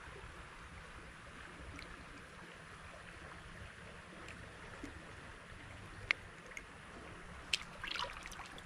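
Creek water trickling steadily, with a few sharp clicks about six seconds in and a short cluster of them near the end.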